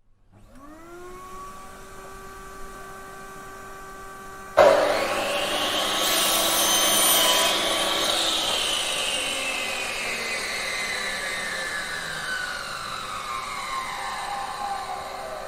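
Angle grinder motor spinning up to a steady whine; about four and a half seconds in, the disc bites into metal with a sudden loud rasping grind, its tone slowly falling in pitch as the cut goes on.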